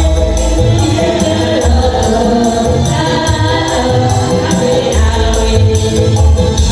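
Music with singing voices over a steady beat, with a strong repeating bass pulse and regular percussion hits.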